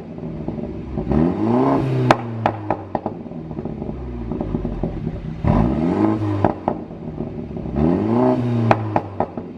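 2018 BMW G30 530i's turbocharged 2.0-litre four-cylinder revved three times. Each blip is followed by sharp exhaust pops and crackles as the revs drop, the sound of an engine tune that makes the exhaust pop on overrun.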